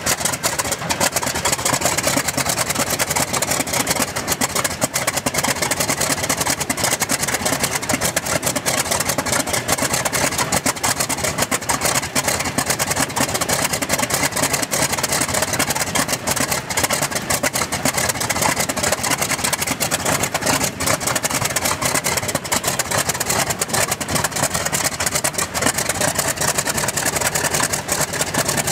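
Antonov An-2's Shvetsov ASh-62 nine-cylinder radial engine running steadily on a trailer-mounted test stand, with its propeller turning; a loud, even, rapid clatter of exhaust.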